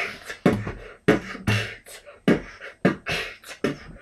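Beatboxing: a person making a drum beat with the mouth, sharp snare- and hi-hat-like clicks and hisses over low kick thumps, in a steady rhythm of a few hits a second.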